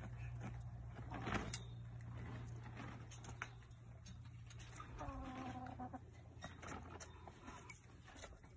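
Hens pecking and scratching at cabbage on the ground, heard as scattered short clicks. About five seconds in, a hen gives one drawn-out low call of about a second. A steady low hum runs underneath.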